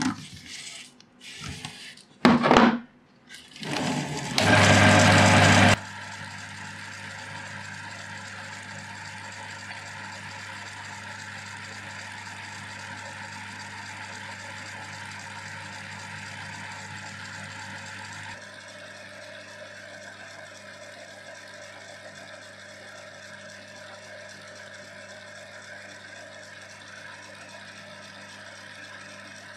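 Small lathe running steadily, spinning a wool buffing wheel held in its chuck while a steel channel is pressed against it for the final polish. The first six seconds hold a few loud, irregular rubbing and handling noises before the steady hum, which drops slightly in level about 18 seconds in.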